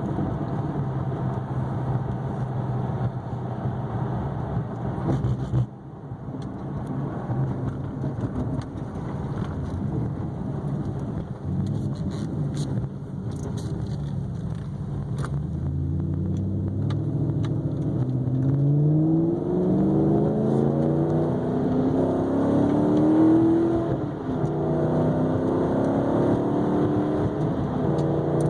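2009 Maserati GranTurismo S's 4.7-litre V8 with the sport-mode exhaust open, running steadily and then accelerating from about halfway. The pitch climbs and drops back at each automatic upshift, twice near the end.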